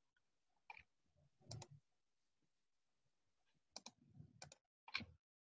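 Near silence broken by a handful of faint, sharp computer clicks from keys or mouse buttons, most of them bunched in the second half.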